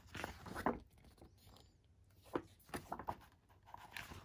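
Pages of a board-game rule book being flipped by hand: several soft paper flaps and rustles, a cluster at the start and a few more spread through the rest.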